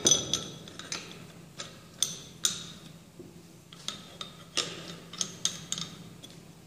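Steel Proctor compaction mould, collar and base-plate clamps clinking and clicking as the mould is seated and clamped together by hand: a string of light, irregular metallic clicks, the loudest at the very start.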